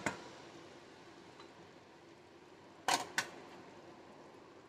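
Two sharp knocks about three seconds in, from a wooden spoon tapped against the rim of an aluminium cooking pot. Under them is a faint steady hiss, and there is one more click right at the start.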